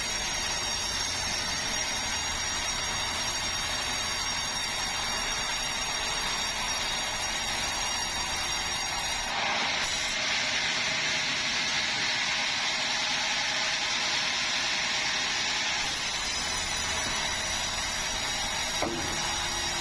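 Sawmill saw machinery running steadily with a high whine. From about nine to sixteen seconds in the sound turns hissier and a little louder, then drops back.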